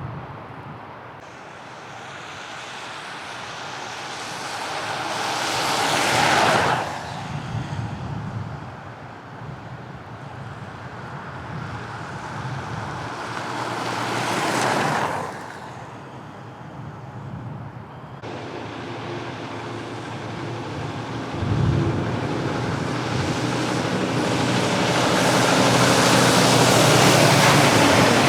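Street traffic: two cars pass, each swelling up and falling away, about six and fifteen seconds in. From about eighteen seconds a steadier rush of traffic builds and grows louder toward the end, with a low thud a few seconds after it starts.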